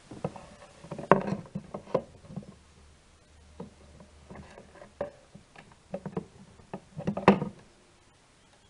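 Clear plastic cover over a small solar panel being handled on a box lid: a run of irregular knocks, taps and plastic rattles as it is lifted, tilted and set back down, loudest about a second in and again near the end.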